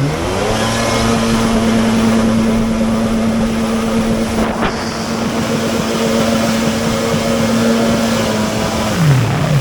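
Motorboat or jet ski engine revving up, holding a steady high pitch for about eight seconds, then dropping back near the end.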